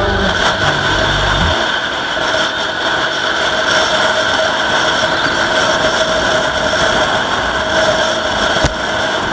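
Motorcycle engine running steadily while riding at an even speed, with wind noise from the ride.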